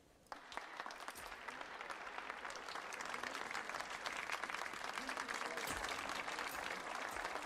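An audience applauding. The clapping starts suddenly just after the start and builds a little in loudness.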